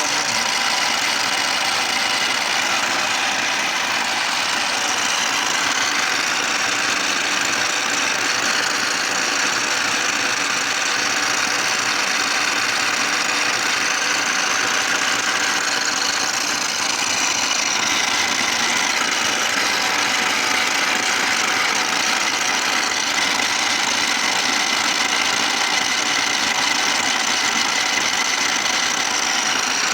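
Restored 675 'Privolzhets' universal milling machine running steadily, its spindle at 1050 rpm with feed 21, during a first test cut: a continuous machine hum with a gear whine.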